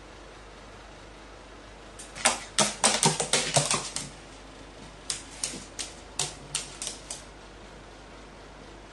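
A carrion crow tapping on a stainless steel counter. There is a quick cluster of sharp clicks about two seconds in, then a second run of about seven slower, evenly spaced taps, roughly three a second.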